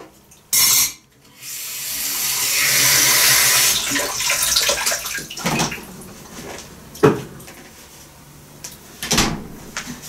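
A kitchen tap runs for about three seconds, after a brief loud burst of noise. This is followed by a few separate knocks and clinks of dishes.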